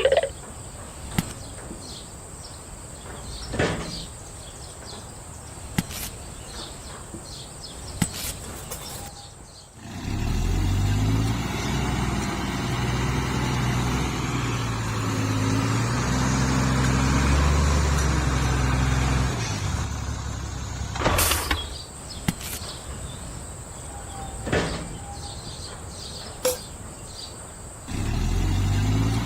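An engine runs at low pitch with small shifts in speed, heard in two stretches: from about ten seconds in until about twenty seconds, and again near the end. In between there are quieter gaps with scattered sharp clicks and knocks.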